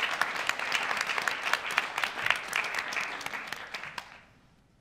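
A roomful of people applauding, dense clapping that dies away about four seconds in.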